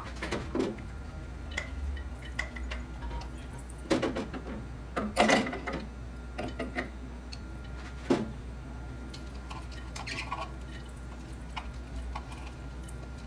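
Scattered light knocks and clinks of small objects being handled, a few louder ones around four to eight seconds in, over a low steady hum.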